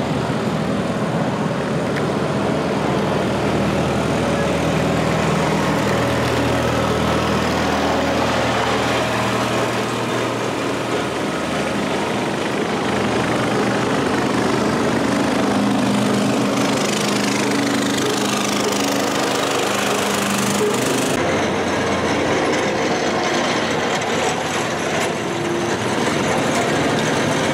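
Small garden tractor engines running as the tractors drive past one after another, their engine notes shifting as different machines come close and move off.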